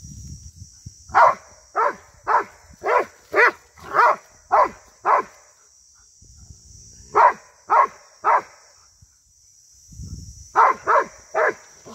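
A ridgeback dog barking at a cow in three bouts of sharp, evenly spaced barks, about two a second: a run of eight, a pause, three more, another pause, then three more near the end.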